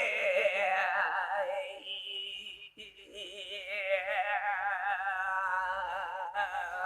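A voice singing long, high held notes with a wide, fast vibrato. The notes break off briefly about two and a half seconds in and again near the end.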